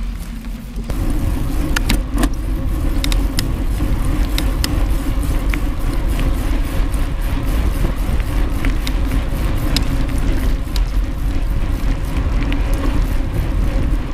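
Wind buffeting the microphone as a mountain bike rolls fast on knobby tyres over a dirt and gravel track, with frequent sharp ticks and rattles from the bike and loose stones. It gets louder about a second in.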